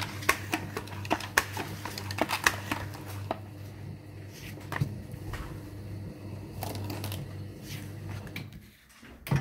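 CCP 650E creasing machine with a steady low hum, over which come irregular clicks and taps: a quick run in the first three seconds, a few more later. The hum drops away briefly near the end, just before a sharp knock.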